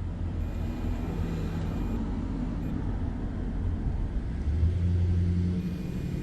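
Low, steady engine rumble of a motor vehicle, a little louder from about four and a half seconds in.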